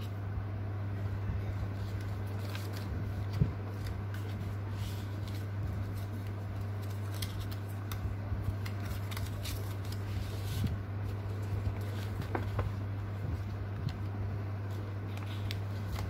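Stiff chart-paper pages of a handmade project file being handled, turned and unfolded: scattered soft rustles and taps over a steady low hum.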